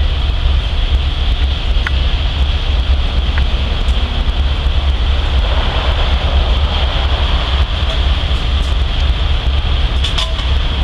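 Steady low rumble of an idling fire engine's diesel engine, mixed with wind buffeting the microphone, under a steady high-pitched drone.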